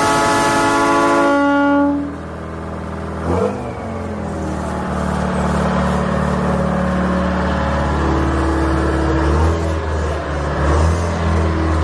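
A loud multi-tone horn blares and cuts off about two seconds in. The giant homemade trike's engine then runs steadily, with a knock about three and a half seconds in and brief rises near the end.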